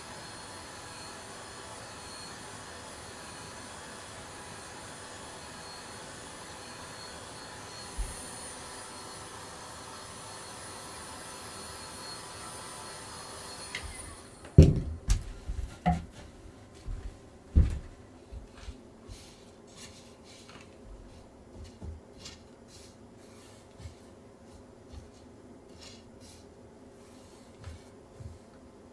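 A steady machine whirr, like a small blower or fan motor, runs and cuts off about halfway through, followed by a few loud knocks and then scattered light clicks, taps and rubbing of tools and materials being handled during silkscreen printing work.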